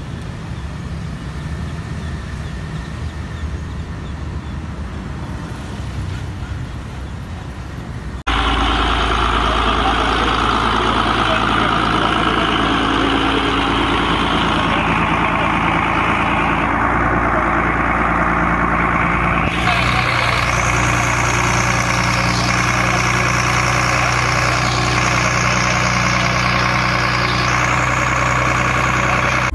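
Engine of a portable flood-water pump set running steadily and loudly, with a constant low hum. It cuts in abruptly about eight seconds in, after a quieter steady background noise.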